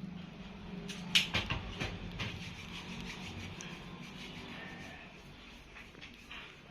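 Equipment being handled and set out: a cluster of sharp knocks and clicks about a second in, followed by softer rubbing and scraping.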